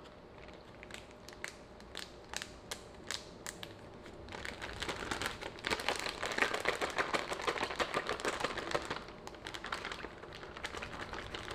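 Plastic zipper-top food bag crinkling as it is closed and worked in the hands, with fish fillets in hot sauce inside. Scattered crinkles at first, then a louder, dense spell of crinkling from about four to nine seconds in, thinning out again near the end.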